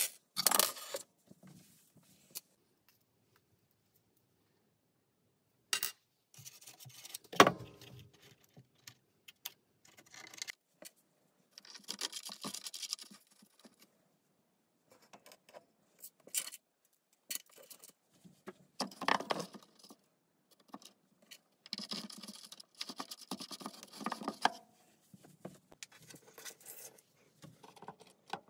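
Small brass bolts, nuts and washers clinking and clattering as they are handled and fitted into a plywood frame, with scattered clicks and bursts of scraping and rubbing. One sharp knock stands out about seven seconds in.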